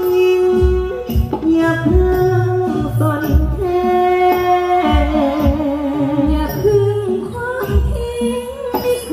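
Amplified singing of a Thai love song over a backing band, a sung melody with long wavering held notes over a steady bass-drum beat about once a second, heard through a stage PA.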